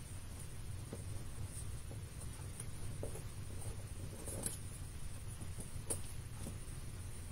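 Paper handling: a few faint taps and rustles as paper cut-outs are picked up and pressed into place on a craft mat, over a steady low hum.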